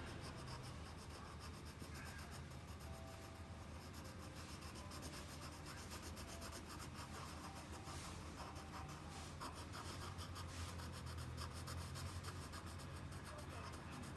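Graphite pencil scratching on paper in a rapid run of short strokes as it draws lines and shades, over a low steady hum.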